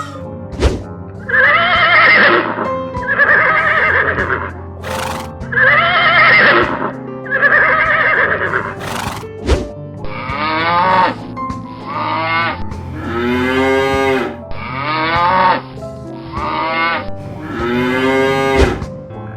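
A series of loud animal calls, each a few seconds long, played over background music. The first four calls are identical repeats; from about ten seconds in come calls whose pitch arches up and falls away.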